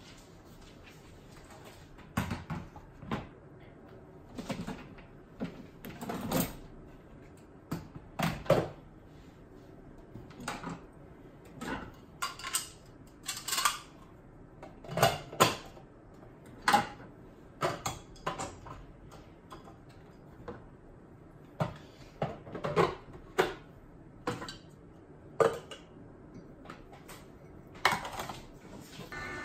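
Irregular clicks, knocks and clatter of kitchenware being handled, as the parts of a vertical slow juicer are fitted together and a mug is set down under its spout.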